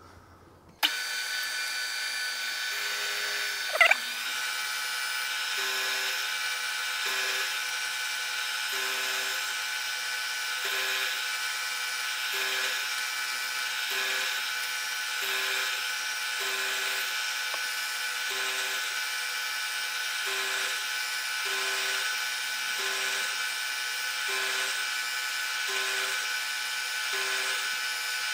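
Milling machine spindle running steadily, coming in suddenly about a second in, as a 4 mm four-flute end mill cuts a slot in steel. A brief rising squeal near four seconds in, and a faint regular pulse about once a second.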